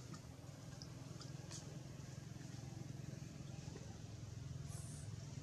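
A steady low engine hum, with a few faint clicks and a brief hiss near the end.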